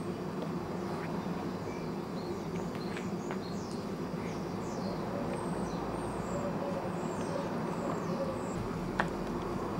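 Small birds chirping in short high calls over a steady low background rumble, with a single sharp click about nine seconds in.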